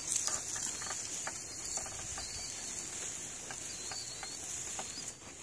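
Quiet outdoor background: a steady high hiss with a few scattered light clicks and rustles.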